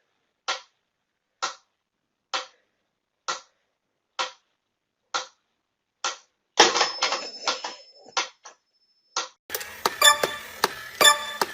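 Regular sharp ticks, about one a second, like a clock ticking. Past the middle comes a short clatter with a thin high whine. Near the end there is dense, rapid clicking with ringing tones.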